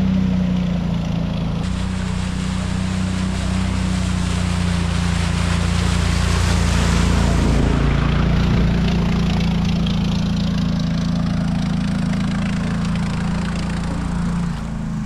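Small engine running steadily at an even speed over a constant rushing wash of water or wind noise.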